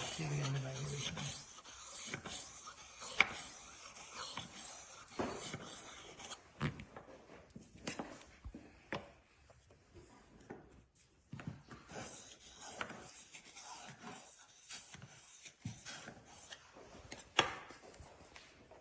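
Knife blade being stroked back and forth against a rolling knife sharpener's abrasive disc: an irregular rasping scrape, with a couple of sharp clicks.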